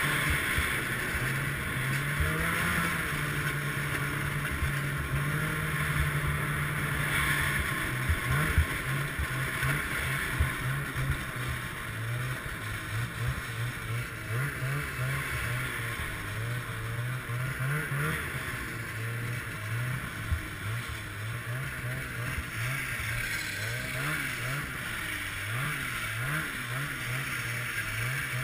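2014 Ski-Doo Summit X snowmobile's two-stroke engine running under way, its note rising and falling over and over as the throttle is worked, with wind noise over it.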